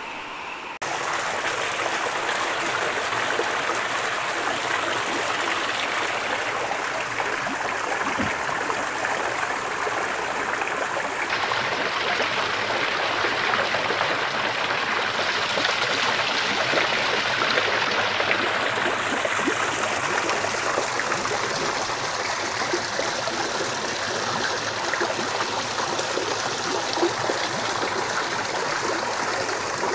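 Water from a garden rock waterfall splashing steadily into a koi pond, starting about a second in.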